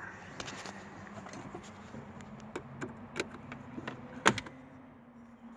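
Scattered light clicks and taps of plastic parts being handled as a car instrument cluster's connector clip is released and the cluster is worked free, with one sharp click about four seconds in, over a faint steady hum.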